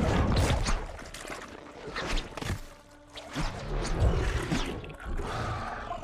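Titanus Ghidorah film sound effect: a loud, noisy crackling rumble with many sharp cracks and deep low thumps, easing off briefly in the middle before building again.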